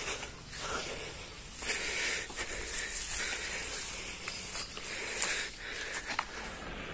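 Footsteps and rustling through dry leaves and weeds, coming in uneven patches with a few light snaps, over a steady high drone of insects.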